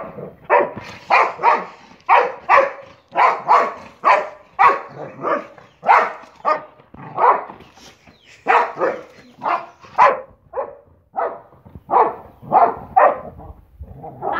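Boxer dog barking at a rooster: a long series of short, loud barks, about two a second and fairly even.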